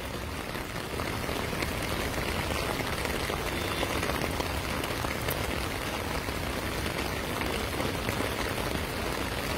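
Heavy rain falling steadily, a dense even hiss that does not let up.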